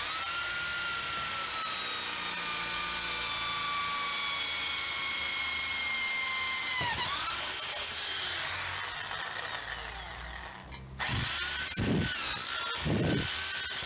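Electric drill running with a small spinning bit held against the smoker's painted steel drum: a steady motor whine that slowly sinks in pitch, then drops away about seven seconds in as the motor slows. Near eleven seconds it speeds up again and runs in uneven surges.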